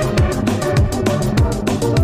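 Electronic background music with a fast, steady drum beat.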